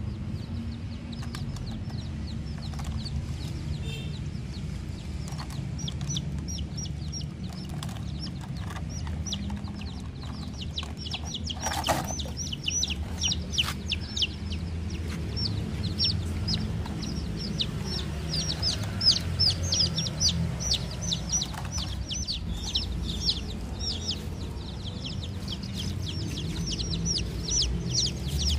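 Domestic baby chicks peeping, many short high falling cheeps that are few at first and come thick and fast from about a quarter of the way in, over a steady low background rumble. One sharp click near the middle.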